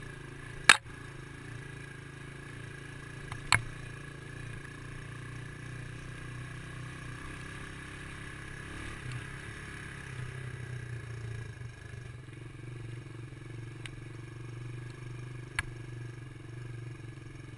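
Dirt bike engine running at low, steady revs on a rough trail, a little stronger for a couple of seconds past the middle. Three sharp knocks stand out: about a second in, near four seconds, and near the end.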